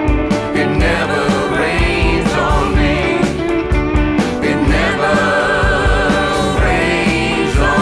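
Upbeat rock song: singing over a full band with a steady drum beat.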